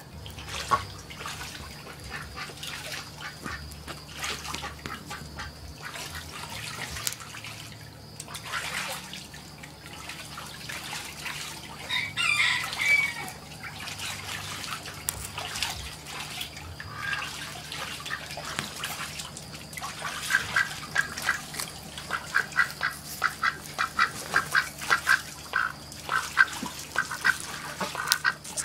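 Domestic ducks quacking, with scattered calls at first and a louder call about twelve seconds in. In the last third comes a long run of quick, repeated quacks.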